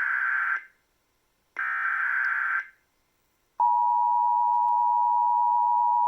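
Emergency Alert System tornado warning signal: two roughly one-second bursts of the buzzing digital data header, the first ending just after the start, then a steady single-pitch attention tone that begins about three and a half seconds in and holds.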